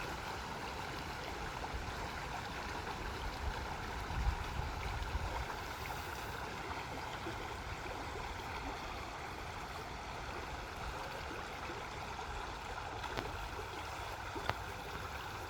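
Small waterfall splashing and rushing steadily, with a brief low rumble about four seconds in.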